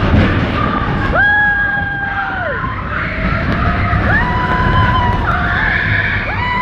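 Riders on the Expedition Everest roller coaster screaming: three long held screams, more than one voice at once, each rising at the start and falling away at the end. Under them runs a steady low rumble from the moving ride.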